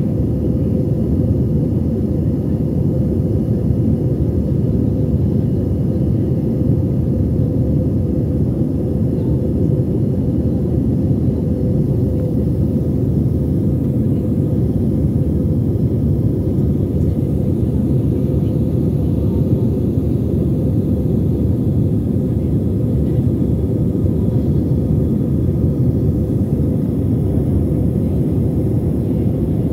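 Steady cabin noise of a jet airliner in flight, heard from a window seat over the wing: a low, even drone of engines and rushing air, with a faint steady hum on top.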